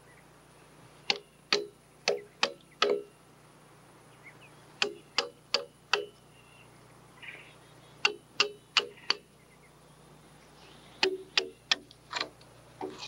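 Hammer driving a chisel into a log, knocking out the wood ridges left in a chainsaw-roughed notch. The sharp, ringing blows come in bursts of four or five, about two to three a second, with short pauses between bursts.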